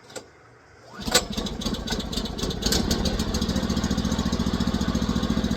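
Sawmill's gasoline engine starting: it catches about a second in, picks up, and settles into a steady idle as it warms up before the saw is put under load.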